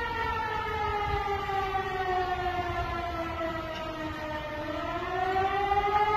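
Outdoor tornado warning siren wailing. Its steady tone slowly sinks in pitch for about four seconds, then rises back up, sounding a tornado warning.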